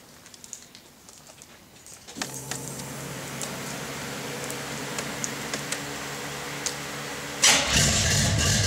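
Light clicks from the ignition keys, then about two seconds in a steady whirring hum sets in as the car is being started. Near the end the Trans Am's cammed small-block V8 catches and fires up loudly through its new dual 3-inch exhaust.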